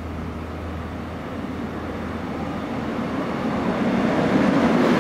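Korail Class 319000 electric multiple unit approaching on an express run through the station without stopping. Its running noise grows steadily louder over the second half, loudest near the end as the train reaches the platform.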